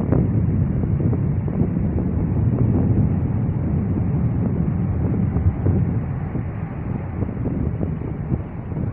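Wind buffeting the microphone in a steady low rumble, over the continuous hum of highway traffic with trucks and cars passing.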